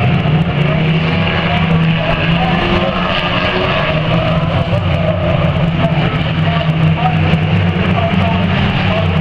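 Several banger racing cars' engines running as they race around the oval, with cars passing close by.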